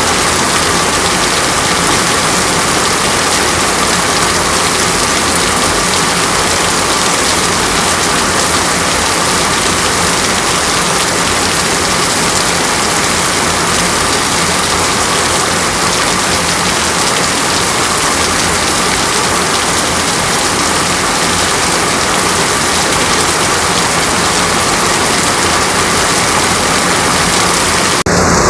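Heavy rain falling with a steady hiss, a faint low hum running underneath; the sound changes abruptly near the end.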